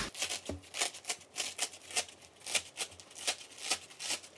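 Hook-and-loop (Velcro) closure on a climbing crash pad's add pad being peeled apart by hand: a dry crackle of many small irregular ticks, several a second.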